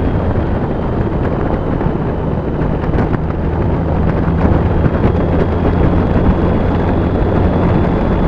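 BMW K75 motorcycle's three-cylinder engine running at a steady cruise with a low even hum, mixed with wind rush on the microphone.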